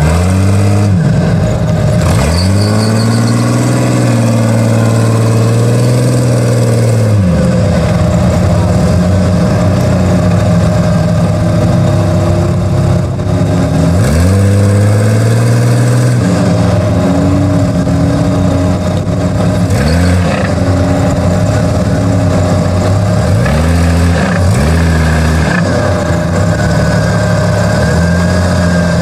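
Jeep Cherokee's engine revving in bursts while it drives through deep mud on a steep slope. One long rev is held for several seconds near the start, another comes about halfway, and a string of short throttle blips follows near the end.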